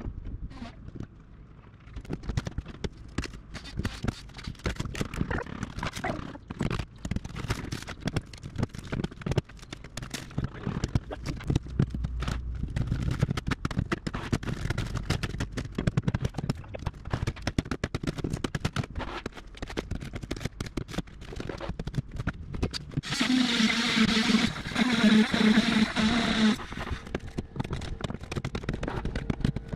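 Hand tools knocking and scraping rotted plywood and fiberglass out of a boat transom: many quick, irregular knocks and scrapes. About three quarters of the way through, a louder sound with a steady pitch lasts about three seconds.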